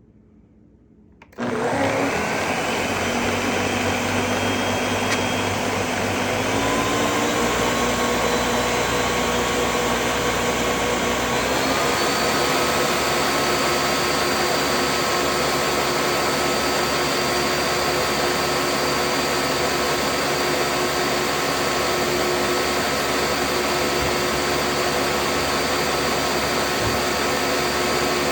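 Electric blender starting about a second in and running steadily as it blends a vinaigrette of olive oil, vinegar, lemon juice, honey and garlic; its whine steps up in pitch twice in the first half.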